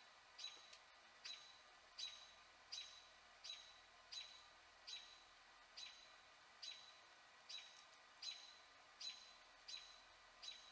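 A faint, high animal chirp repeated steadily, about every three-quarters of a second.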